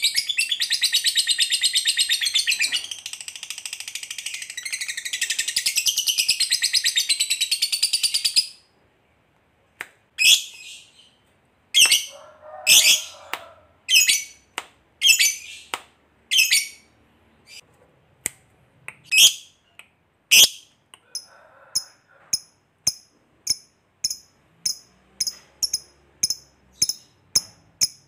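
Fischer's lovebird giving a long, unbroken rapid chattering trill, the 'ngekek panjang' that lovebird keepers prize, for about eight seconds before it stops abruptly. Then come single sharp calls about a second apart, turning to quick short chirps about two a second near the end.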